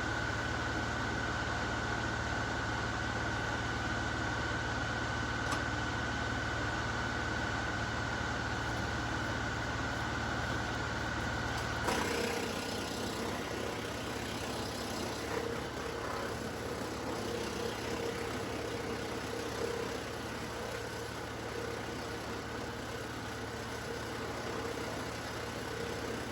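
LS XR3135 compact tractor's diesel engine running steadily, driving a Woodland Mills WC68 PTO wood chipper. About halfway through, the sound changes abruptly: the low hum drops away and a different steady tone takes over.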